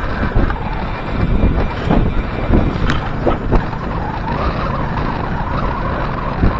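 Steady wind rushing over the action camera's microphone as a bicycle rolls at about 22 mph, with low road noise from its wide 700x45c tyres and a few small knocks.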